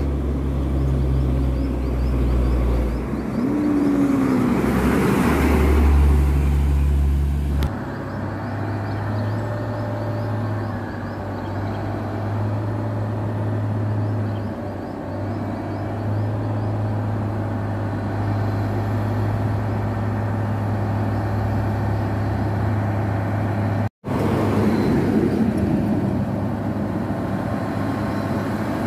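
Heavy diesel trucks running along a road, a steady low engine drone with tyre noise. The sound changes abruptly about eight seconds in and cuts out for an instant about four-fifths of the way through.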